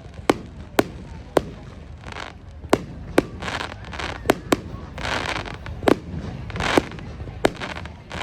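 Fireworks going off: a string of sharp bangs at irregular intervals, roughly one or two a second, with spells of hissing between them.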